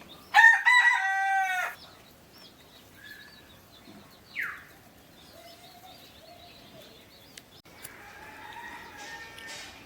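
A rooster crows once, loud, about a second and a half long, shortly after the start. Faint small-bird chirps and a brief falling call follow.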